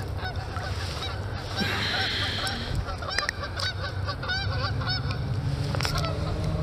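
Geese honking, a series of short calls, over a steady low rumble.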